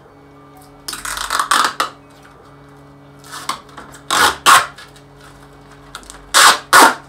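Protective plastic film being peeled off picture-frame glazing, crackling in several short, loud bursts, the loudest as two pairs in the second half.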